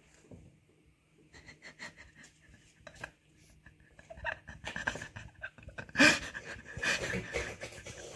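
A person breathing heavily in short, irregular pants, mixed with small clicks and rustles. It grows louder from about four seconds in, with a loud burst about six seconds in.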